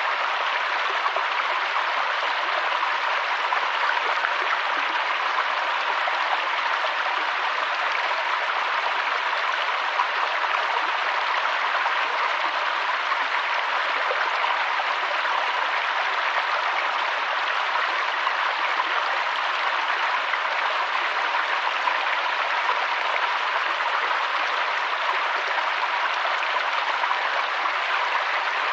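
Waterfall: a steady, unbroken rush of falling water, hissy and bright with little deep rumble.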